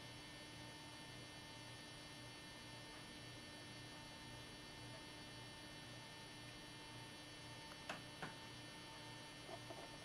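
Near silence: a faint steady electrical hum, with two faint clicks about eight seconds in.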